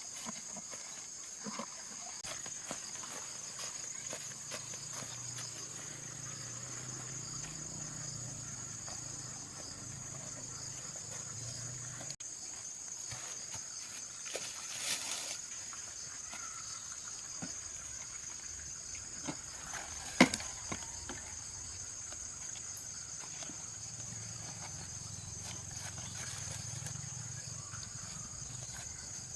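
Steady high-pitched insect chirring, typical of crickets or cicadas, with scattered light clicks and one sharp knock about twenty seconds in.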